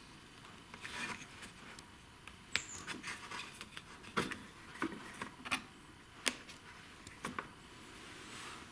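Hand-handling noise on a Honda GCV160 lawn mower engine's plastic housing and controls: about half a dozen sharp clicks and knocks, with rubbing and scraping between them.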